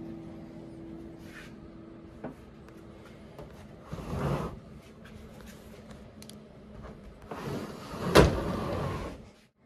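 Door panel of a capsule-hotel sleeping pod being slid open by hand: a short slide about four seconds in, then a longer slide that ends in a sharp clack about eight seconds in.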